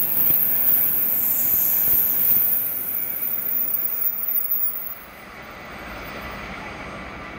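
A JR West 923-series Doctor Yellow Shinkansen inspection train passing close at speed: a loud, steady rush of wheels on rail and air with a high hiss. About five seconds in, as the tail moves away, it drops sharply to a fainter rush.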